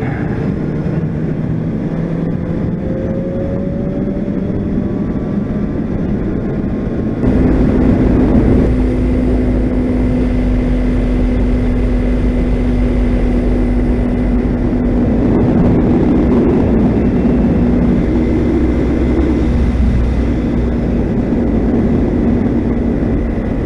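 Honda CBR600RR's inline-four engine running at a steady cruising speed, heard over wind noise. About seven seconds in, the sound jumps abruptly louder and deeper and holds a steady engine note.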